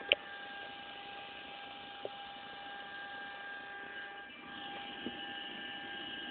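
Car audio speakers giving off a steady electrical whine of several high tones, the unwanted noise they make whenever the car is on. A sharp click comes just after the start, with two fainter clicks later.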